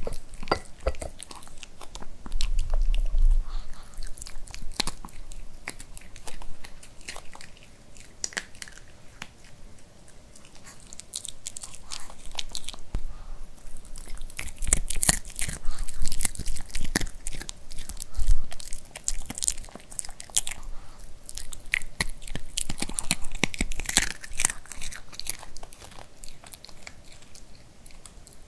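A Pomeranian crunching and chewing dry dog kibble close to the microphone, in irregular bursts of crisp crunches.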